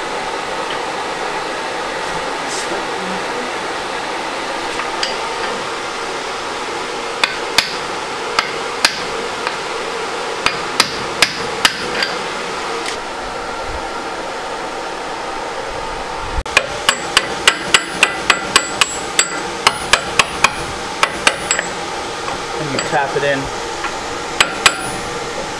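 Hammer tapping a new rear axle seal into the axle housing: scattered light taps, then a quick run of about three taps a second, with a few more near the end.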